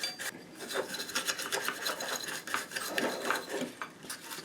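Paintbrush scrubbing a speaker amplifier circuit board wet with isopropyl alcohol, a run of quick, irregular bristle strokes.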